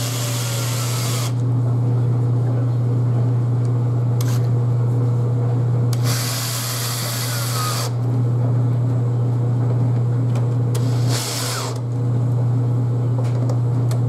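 Cordless drill driving screws into a wooden bar in three bursts: one right at the start, a longer one about six seconds in, and a short one about eleven seconds in. A steady low hum runs underneath throughout.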